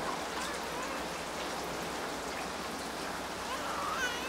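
Steady rain falling, an even patter and hiss, with a brief higher pitched sound near the end.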